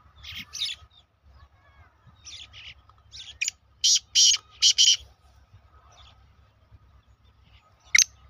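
Black francolin calling: a run of four short, loud notes about four seconds in, with fainter notes before it, and the next loud phrase starting right at the end.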